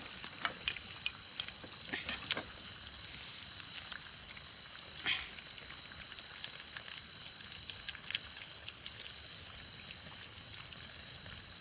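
Night insects, crickets among them, chirping steadily in a high-pitched chorus, with a few scattered sharp clicks.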